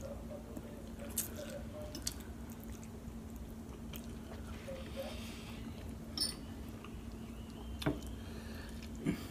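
Mouth sounds of people eating noodles: chewing and slurping, with a handful of short wet smacks spread through, over a faint steady hum.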